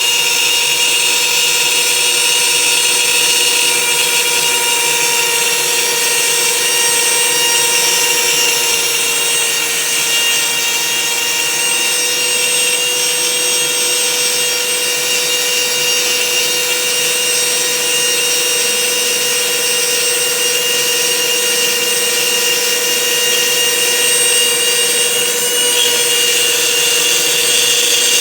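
CNC router spindle running at a steady whine while its bit cuts a cutting-board pattern into wood, with a constant hiss from the cut.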